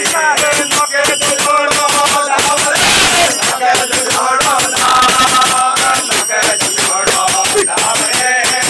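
A group of men singing a Rajasthani devotional bhajan in chorus, with small brass hand cymbals (manjira) striking a quick, steady beat.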